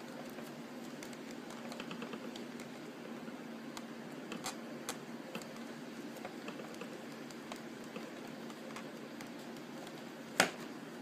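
Steady hum of a room air conditioner, with scattered small clicks and taps from handling the plastic toy rifle while pressing and flattening putty on it. A single sharper click comes near the end.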